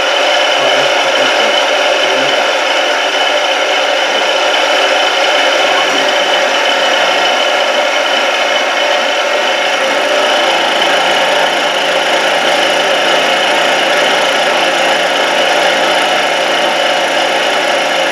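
Indexable end mill with APMT 1003 carbide inserts cutting a metal block on a CNC milling machine: a steady, loud mix of spindle whine and cutting noise. A low steady tone joins about ten seconds in.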